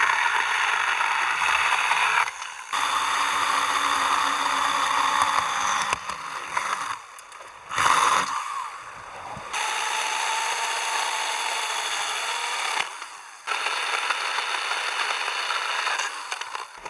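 Small battery-powered pruning saw, a Stihl GTA 26, cutting through wood in about five runs of two to three seconds each, with short pauses between the cuts.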